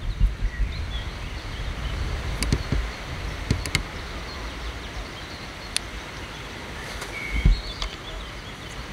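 Outdoor ambience: wind rumbling on the microphone, with a few sharp clicks scattered through and a short bird chirp near the end.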